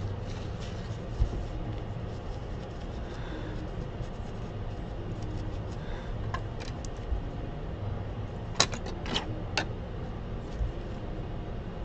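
Steady low hum of running workbench equipment, with a soft thump about a second in and a quick cluster of sharp clicks around nine seconds in.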